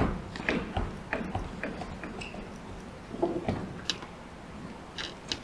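Scattered light knocks, clicks and rustles of movement about a stage set: a metal-framed chair being sat on and papers handled at a table.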